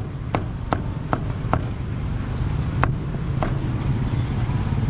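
A cleaver chopping crispy roast pork belly on a thick round wooden chopping block: five quick, evenly spaced chops in the first second and a half, then two more spaced-out chops around three seconds in. A steady low rumble runs underneath.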